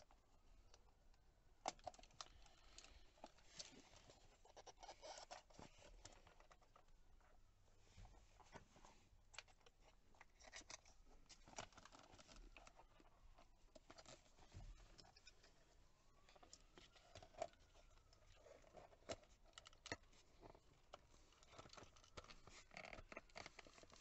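Quiet scattered plastic clicks, knocks and scraping as a VW airbag module is pressed and worked by hand into a Mk5 Golf GTI steering wheel hub until its spring clips latch.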